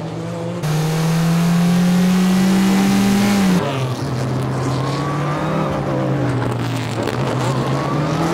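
Race car engines running hard, loudest from about half a second in until about three and a half seconds, when the note drops; the engine note then climbs again as the car accelerates.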